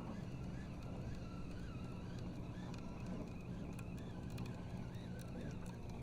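Steady low hum of a distant motorboat engine across the water, with faint high chirps repeating about twice a second over it.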